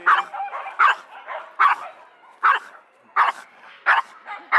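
Small Pomeranian–Pekingese mix dog barking repeatedly at an even pace, about one sharp bark every 0.8 seconds. This is her habitual nonstop barking.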